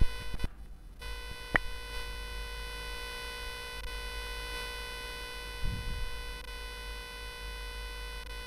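A steady electronic buzz made of many evenly spaced tones, starting about a second in, with a single sharp click shortly after it begins.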